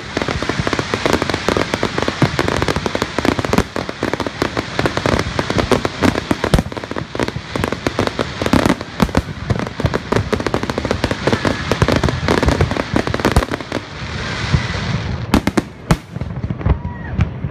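Aerial fireworks display: a dense, rapid barrage of shell bursts and crackling. Near the end it thins out to a few separate sharp bangs.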